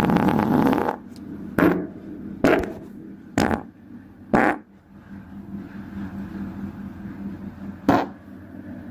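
Fart sounds: one long fart lasting about a second, then five short, sharp ones spaced out over the following seven seconds.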